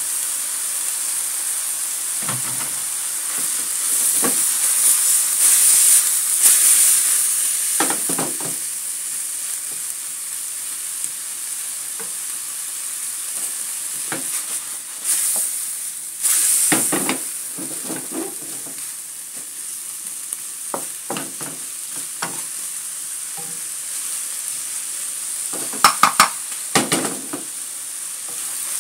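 Sliced bitter melon and shrimp stir-frying in hot oil in a pan: a steady sizzle that swells twice as a wooden spatula turns the food, with a few sharp clicks of the spatula against the pan near the end.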